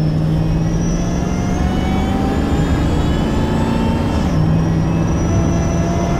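Supercharged Saab 9-7X V8 under boost in a hard acceleration pull, heard from inside the cabin: the engine note and a thin high supercharger whine rise together. Both drop at a gear shift about four seconds in, then climb again.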